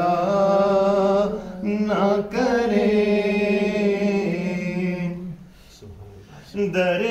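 A man singing a naat unaccompanied, drawing out long held notes in a slow melodic line. The voice breaks off about five and a half seconds in and starts a new phrase near the end.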